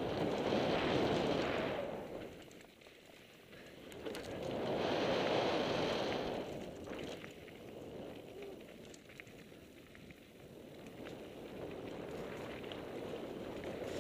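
Mountain bike descending a dirt trail: tyres rolling over dirt with wind rush on the microphone, swelling twice into louder hissing surges, in the first two seconds and again around five seconds in, with scattered light chain and frame rattles.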